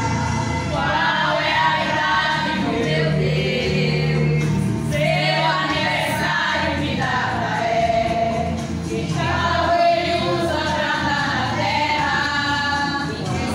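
Women's church choir singing a hymn together in unison, over a low sustained instrumental accompaniment.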